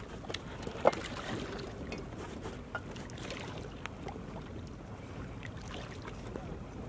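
Steady low outdoor rumble, with wind on the microphone, broken by a few sharp clicks and taps from handling a bamboo fishing rod and line; the loudest click comes about a second in.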